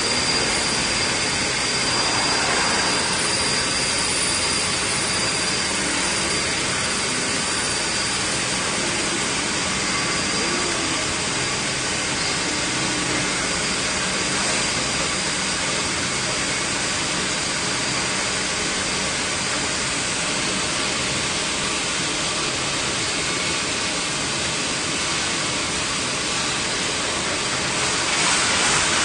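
OUYIGANG 1250-type 8K mirror-finish polishing machine running, its row of polishing heads working a stainless steel sheet: a steady rushing machine noise with a faint high whine held through it. The noise grows a little louder near the end.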